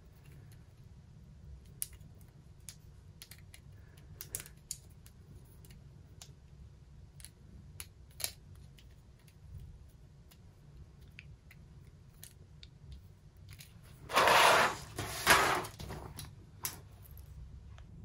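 Hands turning a Zebra MyTee Grip mechanical pencil after its grip ring has been slid into place: faint, scattered small clicks and rubs of plastic. About 14 seconds in comes a much louder rustling scrape lasting about two seconds.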